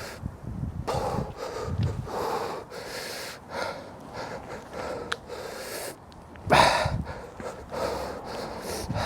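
A person breathing hard in repeated noisy puffs, roughly one a second, with one louder exhale past the middle.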